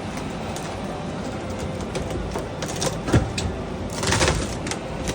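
Construction work noise during a wall and floor repair: scattered knocks and clatter over a steady noisy background, with a heavy thump about three seconds in and a short burst of noise about a second later.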